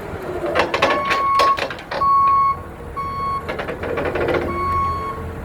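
Mini excavator's travel alarm beeping about once a second over the low rumble of its diesel engine, with several metallic clanks in the first couple of seconds.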